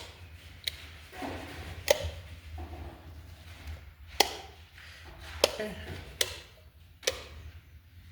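Sharp taps or knocks, about six of them at uneven intervals, over a low steady hum.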